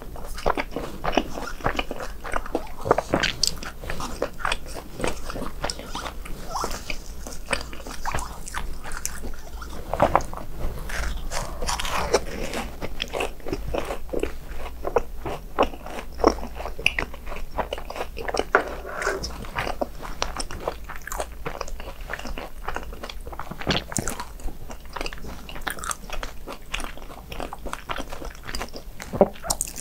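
A person biting and chewing crispy fried snacks (BHC Bburing hot dogs or cheese balls), a dense run of sharp crunches that keeps going.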